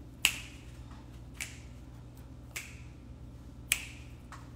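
Fingers snapping in an even rhythm, four snaps about a second apart, the first and last loudest, over a faint low hum.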